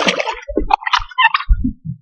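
Short, irregular bursts of splashing and dull knocks as a hooked smallmouth bass is landed at the boat.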